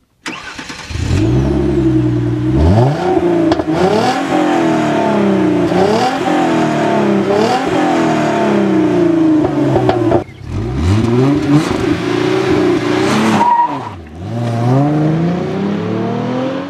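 Hyundai Genesis Coupe's 3.8 litre direct-injected V6 heard at the exhaust, revved again and again, its pitch climbing and falling. The sound dips briefly about ten and fourteen seconds in.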